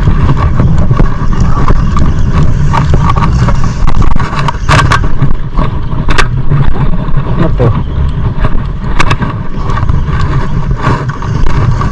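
Outrigger boat's engine running steadily underway, a loud continuous low rumble, with a few short sharp clicks over it.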